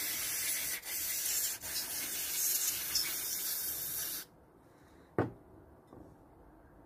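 Aerosol can spraying cleaner into a lawnmower carburettor's passages to flush out old fuel sludge: a steady hiss with a couple of brief breaks that stops about four seconds in. A single sharp knock follows about a second later.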